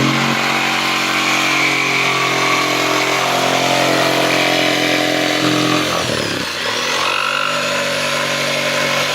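Electric jigsaw running and cutting wood, a steady buzzing motor that sags briefly about six seconds in and then picks up again.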